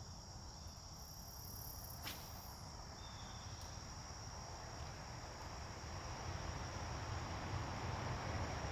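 Insects calling in one steady, unbroken high-pitched trill. A single click about two seconds in, and a low rumble that grows louder toward the end.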